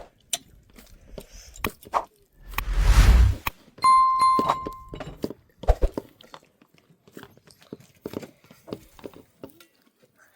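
Scattered clicks and knocks of things being handled, a short rush of noise about three seconds in, then a metal object struck once, ringing with a clear tone that fades over about a second.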